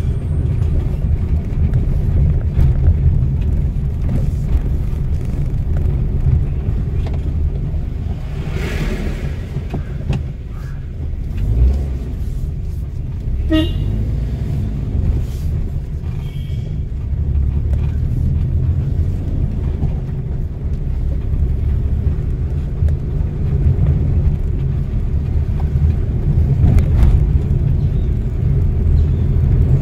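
Steady low engine and road rumble heard from inside a moving car, with a short vehicle horn toot about halfway through.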